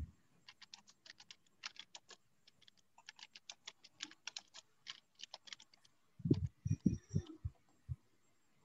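Computer keyboard typing: quick, irregular key clicks, followed by a few duller thumps about six seconds in.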